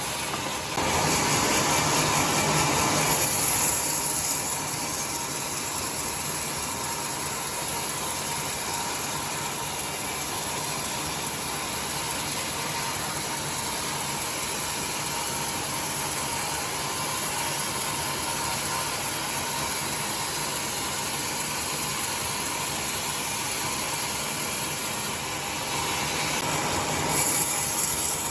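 Sawmill saw running steadily while splitting timber into 2 cm boards, with a constant machine hum, growing louder for a few seconds near the start and again near the end.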